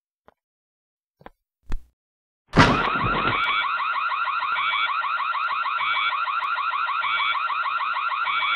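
A few soft ticks and a thud, then an alarm goes off suddenly with a loud hit and keeps ringing with a rapid warble, a short beep sounding over it every second or so.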